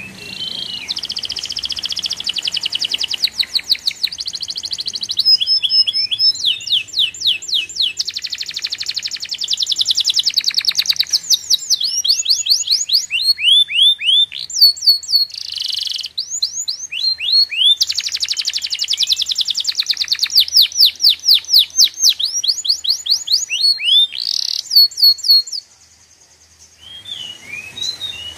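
A songbird singing a long, loud, varied song of rapid trills and repeated chirps, with short breaks between phrases. The song stops near the end, and a few more notes follow.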